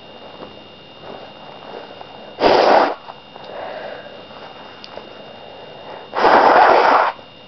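A person sneezing twice, two loud sudden sneezes about four seconds apart, the second one longer. Quieter sniffing and breathing comes between them.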